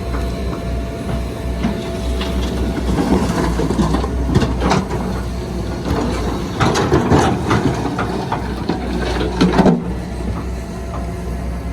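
Bulldozer's heavy diesel engine running steadily, with three bursts of clanking and scraping as it works soil and stone: one about two to five seconds in, one about halfway, and one near the end.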